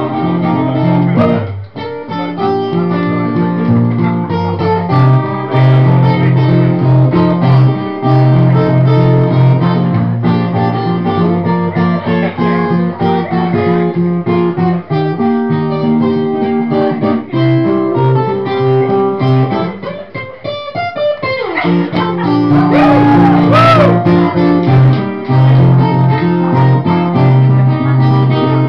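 Guitar music with plucked and strummed chords, playing steadily throughout, with a short break about twenty seconds in before it picks up again.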